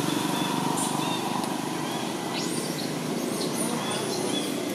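Steady outdoor background noise with a low hum, broken by a few short, high chirps about a second in, halfway through and near the end.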